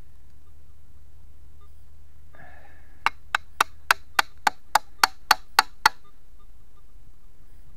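A brief rustle, then a run of eleven sharp, evenly spaced taps, about three and a half a second, ending about six seconds in.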